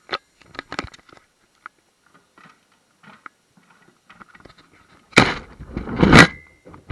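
Plastic handling noise from a paper shredder and the camera inside its basket: scattered light clicks and knocks, then about five seconds in two loud bursts of plastic rattling and scraping as the shredder's cutting head is set down over the basket, ending in a brief high tone.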